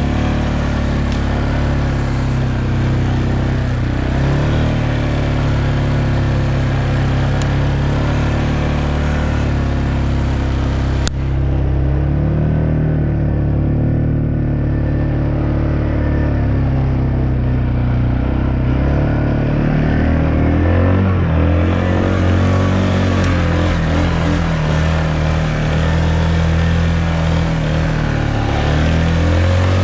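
ATV (four-wheeler) engine running while it is ridden along a trail, its pitch rising and falling with the throttle. There is one sharp click about eleven seconds in.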